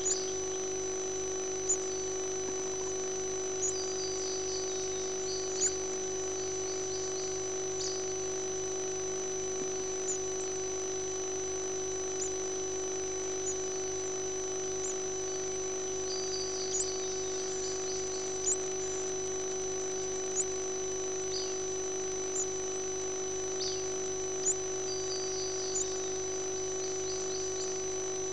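Nestlings in a prothonotary warbler nest, with a brown-headed cowbird chick among them, giving short high-pitched begging peeps every second or two, with a few brief buzzy runs, while an adult warbler feeds them. A steady electrical hum with a high whine runs beneath.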